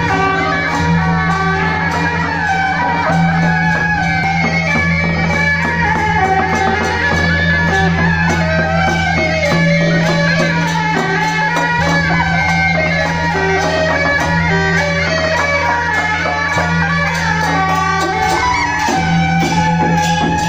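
A traditional Taiwanese temple-procession band is playing: suona shawms carry a reedy, bending melody over a steady low drone, with repeated gong and cymbal strokes.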